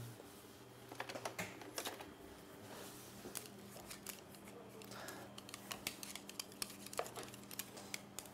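Faint, irregular clicks and taps of a wire whisk and wooden spoon against a plastic mixing bowl, working a thick yeast-and-flour starter, over a low steady hum.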